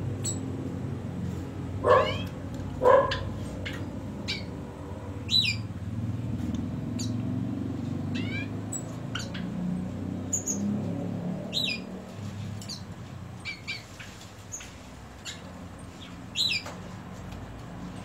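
Caged songbirds chirping: short, sharp notes that sweep down in pitch, scattered throughout, with two louder calls about a second apart some two seconds in. A low, steady rumble runs underneath.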